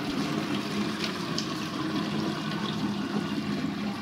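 Steady rushing water, with a steady low hum underneath.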